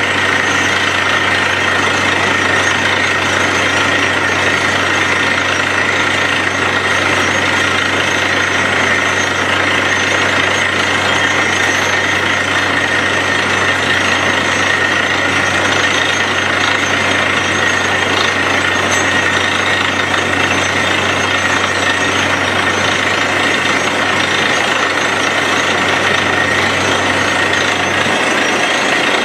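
Truck-mounted borewell drilling rig running while drilling: a loud, steady machine noise of engine hum under a dense hammering hiss, without pause.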